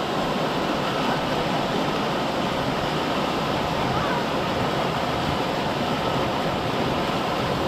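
Steady rush of flowing river water, an even hiss-like noise that holds at the same level throughout.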